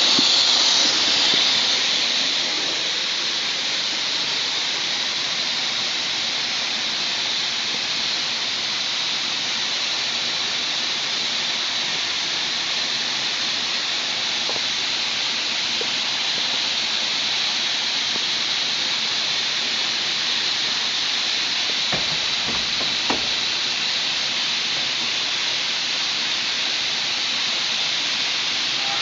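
A steady, loud hiss of rushing noise with no engine note in it, a little louder for the first couple of seconds, with two faint clicks about three-quarters of the way through.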